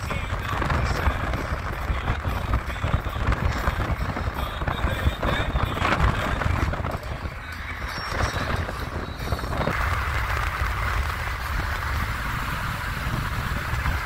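Road and wind noise heard from inside a moving car: a steady low rumble with a rushing hiss over it.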